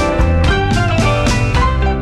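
Background music: an upbeat instrumental track with guitar and a drum kit playing a steady beat.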